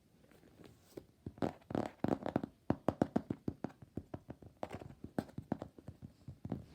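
Mechanical keyboard with lubed and filmed Glorious Panda tactile switches being typed on: a fast, uneven run of keystrokes starting about a second in.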